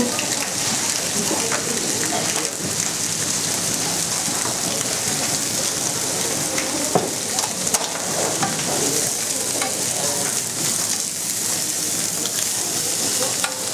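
Thick beef steaks sizzling on a hot ridged grill pan: a steady hiss, with a few sharp clicks about seven to eight seconds in.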